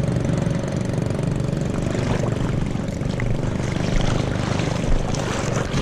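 A steady, low motor drone that holds an even pitch, with a haze of water and wind noise over it.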